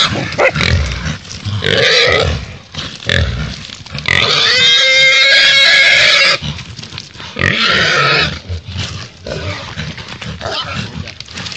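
A black feral pig squealing loudly while caught and held down by dogs: several squeals, the longest lasting about two seconds from about four seconds in, with rough grunting between them.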